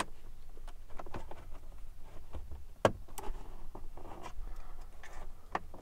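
Plastic dash trim panels being worked loose by hand: scattered light clicks, knocks and rustling, with one sharper click about three seconds in.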